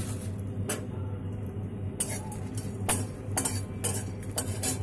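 Steel spatula stirring dried red chillies and whole spices in a dry metal kadai to roast them. It scrapes and clinks against the pan once about a second in, then several times in quick succession in the second half, over a steady low hum.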